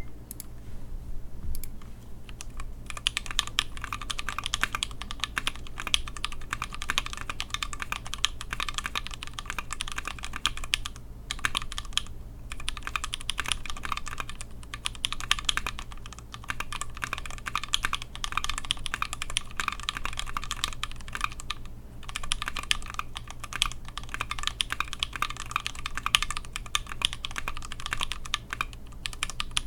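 Typing on a Tofu 60% mechanical keyboard with Holy Chickies switches: a fast, steady stream of key clacks that starts about three seconds in and breaks off briefly a few times.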